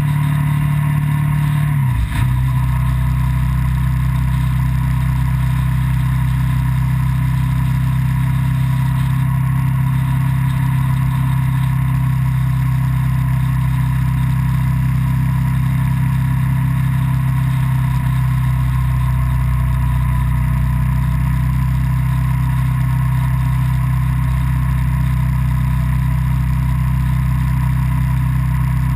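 A motor vehicle's engine running steadily at road speed. About two seconds in its note steps down in pitch with a brief click, then holds an even drone.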